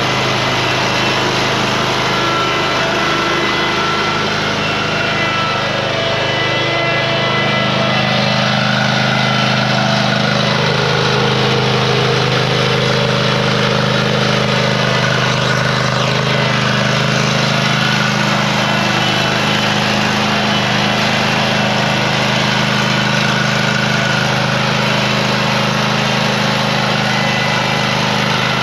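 Zero-turn lawn mower engine running steadily as the mower is driven around, its pitch rising and settling at a higher, steadier note about seven seconds in.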